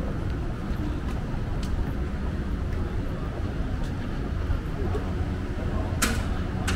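City street ambience: a steady low rumble of traffic and wind on the microphone, with a short sharp knock about six seconds in.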